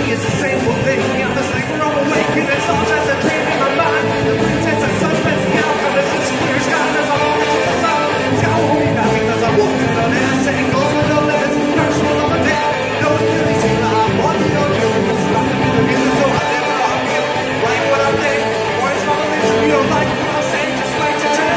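Rock band playing live, electric guitars loud and steady, with a singer's vocals over them.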